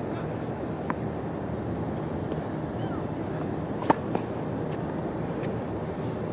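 A few short, sharp knocks of a tennis ball on a hard court or racket, the loudest just before four seconds in with a smaller one right after, over a steady outdoor hiss.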